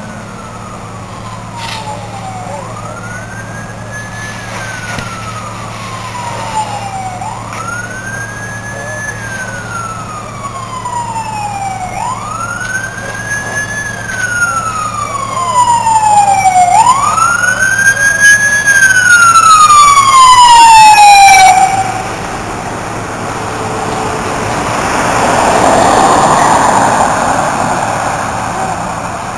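Fire truck siren wailing, each cycle a quick rise and a slow fall repeating every four to five seconds, growing louder as it approaches and then cut off about 21 seconds in. A rushing noise then swells and fades, over a steady low hum.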